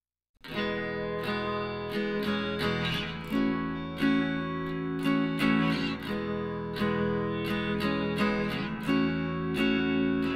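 Background music with a strummed guitar, starting suddenly about half a second in and going on with a steady strumming rhythm.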